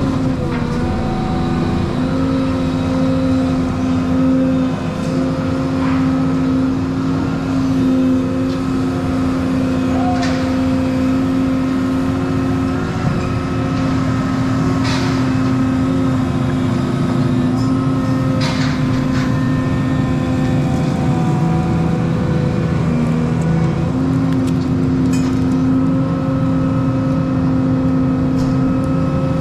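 Volvo 235EL tracked excavator's diesel engine and hydraulics running steadily as the machine slews back and forth, with a few short metallic clanks about halfway through.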